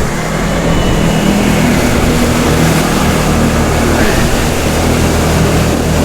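Can-Am Outlander 650 XMR ATV's V-twin engine running steadily under throttle, holding a constant pitch as the quad pushes through a deep, water-filled mud hole.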